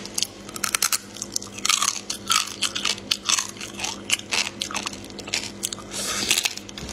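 Close-miked biting and chewing of shell-on marinated raw crab, with many quick, crisp crunches and crackles of shell between the teeth. A faint steady hum runs underneath.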